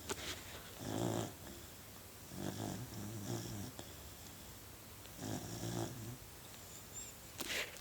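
Beagle puppy snoring in its sleep: a soft, buzzing snore on each breath, about four breaths spaced a second or two apart, with a brief noise near the end.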